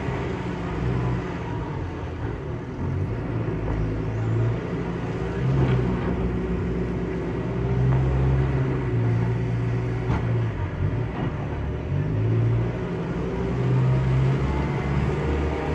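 Diesel engine of farm machinery (telehandler or tractor) running with a low rumble, its note swelling and easing every few seconds as it is worked, with a couple of light knocks.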